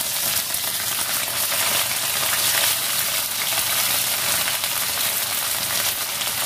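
Hot oil in a steel kadai sizzling and crackling steadily as washed, drained pieces of cut okra are tipped into it from a steel plate.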